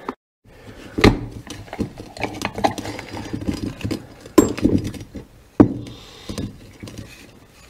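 Metal parts of a Caterpillar D4 fuel tank cap clicking and clinking as it is taken apart by hand on a metal bench: a wire retaining clip pried out and inner plates lifted free. Sharper knocks come about a second in and twice more past the middle.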